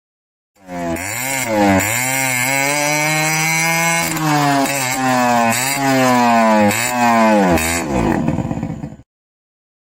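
An engine revving, its pitch rising and falling again and again, then cutting off abruptly near the end.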